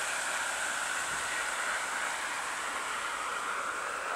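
Freight train of tank cars rolling away along the line: a steady hiss of wheels on rail.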